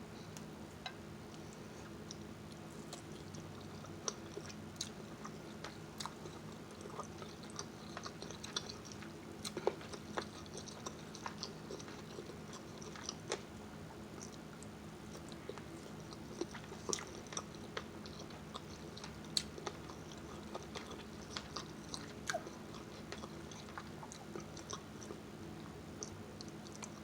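A person chewing and biting food close to the microphone: irregular wet mouth clicks and smacks scattered throughout, over a steady low hum.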